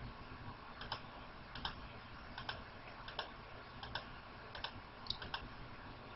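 Faint, scattered computer-keyboard clicks, about one or two a second and sometimes in quick pairs, over a low steady hiss.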